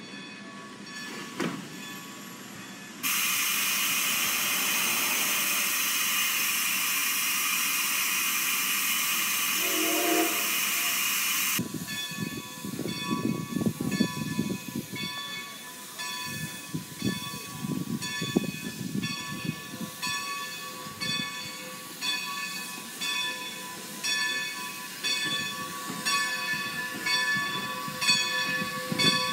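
Strasburg Rail Road's 2-10-0 decapod steam locomotive #90: a loud, steady hiss of venting steam for about eight seconds that starts and stops suddenly, then a quieter stretch of uneven low chuffs and thumps from the standing locomotive, with steady high-pitched tones over them.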